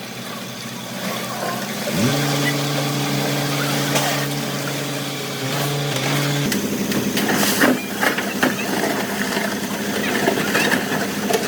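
Heavy-equipment diesel engine running. About two seconds in it revs up quickly and holds a steady higher note, then drops back about four seconds later. Sharp knocks and clanks of stone or metal come around the middle, the loudest near the two-thirds point.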